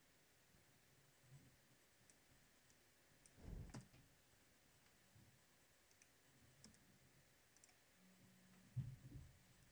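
Near silence: room tone, with a few soft clicks from working at the computer. The loudest click comes about three and a half seconds in, and another comes near the end.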